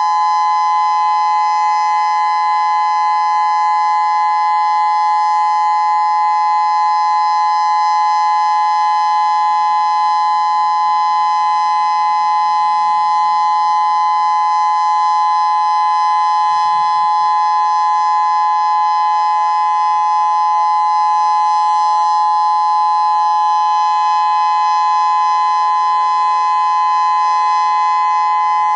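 Federal Signal Modulator 6024 electronic outdoor warning siren sounding a steady, unwavering tone of two close notes for its monthly test, with no rise or fall in pitch.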